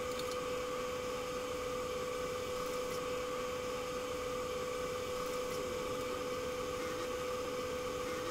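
Steady kitchen hum with a constant tone over a soft hiss, with a few faint knocks of a wooden spatula stirring chicken wings in a wok of oil not yet hot enough to sizzle.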